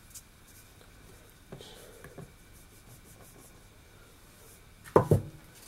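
Faint scraping and light taps of dry flour mixture being tipped from a mixing bowl into a wet cake-batter mixture, then one sharp knock near the end.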